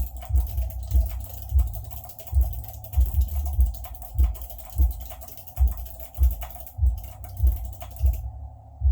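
Fast typing on a Chocofi low-profile split keyboard with Choc Robin switches: a quick, dense run of light key clicks, with a deeper thud about every 0.6 s. The clicking stops shortly before the end.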